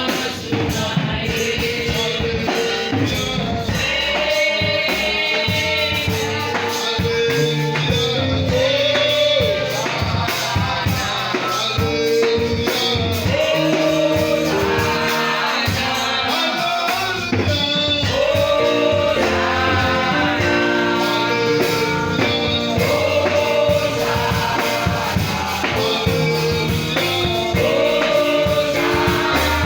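Gospel worship music: singing over a band with a steady beat.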